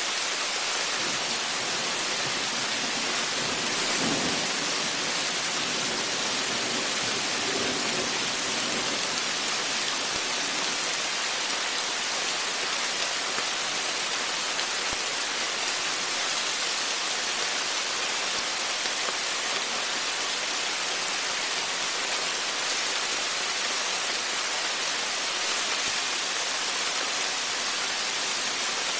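Heavy rain pouring steadily, a dense even hiss of drops falling on and around a porch, with a low rumble of thunder about four seconds in.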